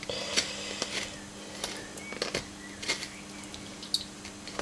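Sharp knife slicing around the ribs of a red cod on a wooden cutting board: faint scattered scrapes and clicks of the blade on flesh and bone, over a steady low hum.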